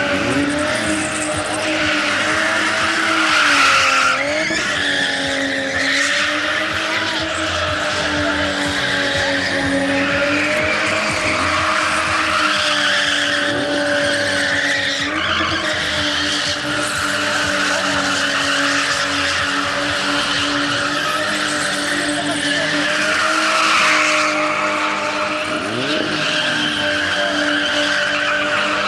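BMW sedan spinning doughnuts, its engine held at high revs with the pitch dipping slightly now and then, while the rear tyres screech continuously as they spin and smoke.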